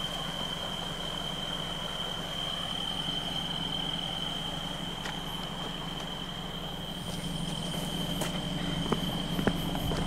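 Night ambience: a steady, high-pitched trill of night insects, over a low steady hum like distant traffic. There are a few faint taps in the second half.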